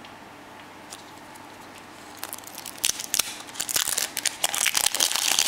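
Plastic wrapper being peeled and crumpled off a plastic surprise egg: a crinkling, crackling run that starts about two seconds in and grows denser and louder toward the end.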